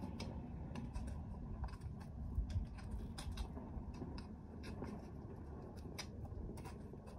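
Hoof pick scraping and clicking against a horse's hoof as packed dirt is picked out: many short, irregular scrapes and clicks.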